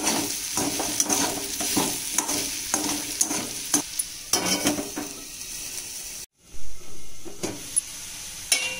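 Diced potatoes sizzling in hot oil in an aluminium kadai while a perforated metal spoon scrapes and stirs them against the pan in repeated short strokes. About six seconds in the sound cuts out for a moment, then a loud bump, and the frying hiss goes on.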